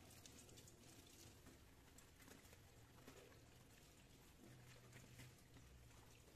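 Faint kitchen tap water running and pattering on tomatoes and onions being rinsed over a stainless steel colander in the sink.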